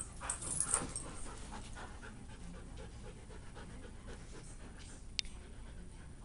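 Huskies panting close by at play, with a louder burst of movement noise in the first second and a short sharp click about five seconds in.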